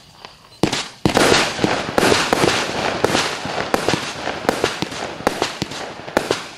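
A 200-shot, 0.8-inch consumer firework battery (cake) firing: a single shot just over half a second in, then from about a second in a rapid run of launch pops and small star bursts, several a second, over continuous crackling.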